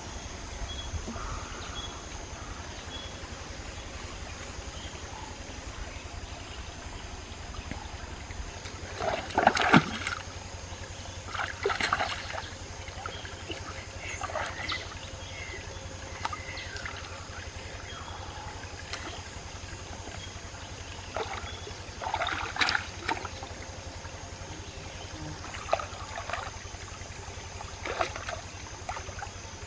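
Hands splashing and sloshing in a shallow rocky stream while feeling among the stones for crabs, in a few short bursts, the loudest about a third of the way in. Under the splashes the stream trickles steadily.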